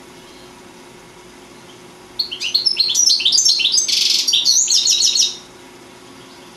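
European goldfinch singing: after about two seconds of quiet, a phrase of rapid high twittering notes lasts about three seconds, with a short harsh buzzy note in the middle.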